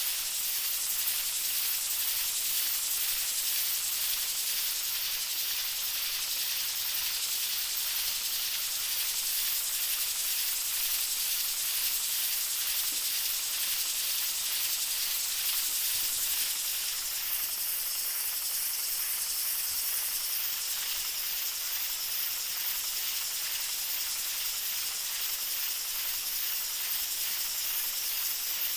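Pressure cooker venting steam: a steady, high hiss of escaping air.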